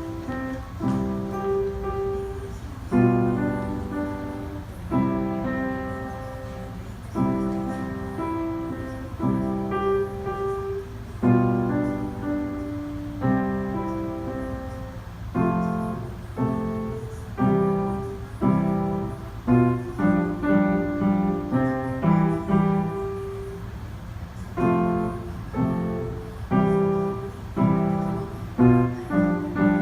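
Instrumental piano music: chords and melody notes struck in a steady rhythm, with no singing, over a steady low rumble.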